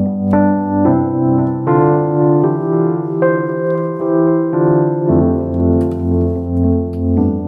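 Background music: sustained electric piano or organ chords that change every second or so, with a gently pulsing level.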